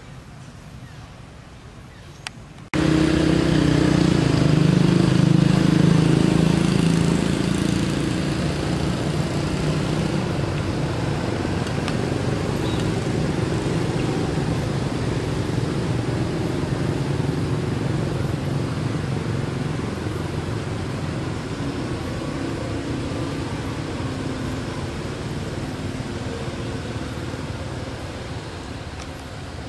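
Steady motor vehicle engine noise, a low rumble that starts abruptly about three seconds in, is loudest over the next few seconds, then slowly fades.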